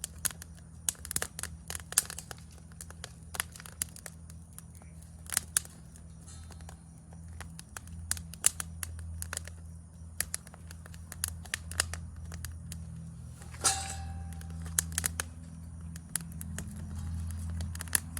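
Wood fire crackling, with irregular sharp pops and snaps over a steady low hum; a denser run of crackles comes about two-thirds of the way through.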